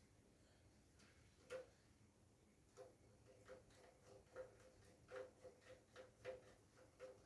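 Faint, irregular metallic clicks and taps, about a dozen, each with a short ring at the same pitch, beginning about a second and a half in: small metal parts or tools knocking together during work on a water heater.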